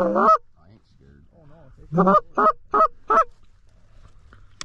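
Canada goose honks blown close by on a hunter's goose call. There is a double honk at the start, softer calls after it, and then a quick run of four loud honks about two seconds in, calling to approaching Canada geese.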